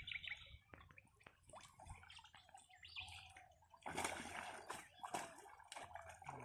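Faint water splashing and trickling, with scattered small clicks and a louder splash about four seconds in.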